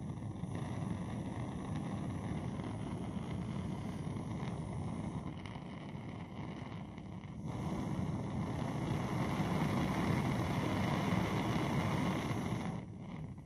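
Antique Butler (Coleman) Model 151 gasoline blowtorch burning with a steady rushing noise. It grows louder about halfway through as the valve is opened and the flame lengthens, then dies away near the end as the torch is shut off. It is running short of full strength, which the owner thinks may be old fuel or a gummed-up nozzle.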